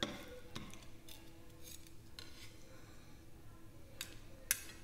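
Faint clicks and taps of metal kitchen tongs and a carving knife working roast chicken on a wooden cutting board, with a sharper clink near the end as the meat is set on a ceramic plate.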